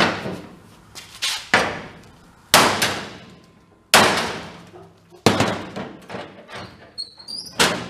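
Sledgehammer striking the steel corner of a pickup bed by the tailgate hinge, five heavy metallic blows about a second or more apart, each ringing briefly. The blows bend the rear-ended bed corner back so the tailgate lines up with its latch.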